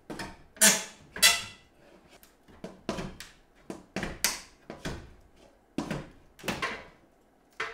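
Old timber window trim being worked loose from a wall, its long-bedded nails resisting. There is a string of about ten sharp knocks and creaks, irregularly spaced, with the two loudest in the first second and a half.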